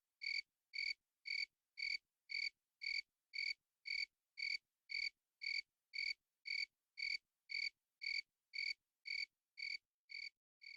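A cricket chirping in an even rhythm, about two short, high chirps a second. The chirps grow fainter over the last second or so.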